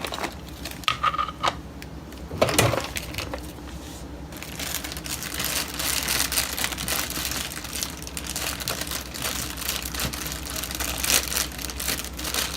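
Plastic packaging being handled and crinkled: a few separate clicks and knocks, then continuous crackling and rustling from about four seconds in.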